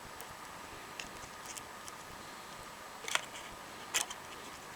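A few light clicks and taps of a screwdriver and small phone parts being handled during a phone screen replacement. The loudest click comes about three seconds in, over a steady faint hiss.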